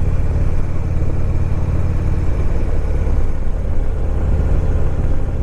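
Harley-Davidson Electra Glide Ultra Limited's V-twin engine running steadily as the motorcycle is ridden, with an even hiss of wind and road noise above it.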